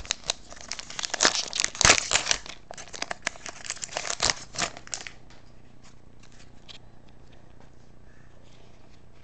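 A foil trading-card pack wrapper being torn open and crinkled by hand, a dense crackling for about five seconds. It then gives way to faint handling of the cards.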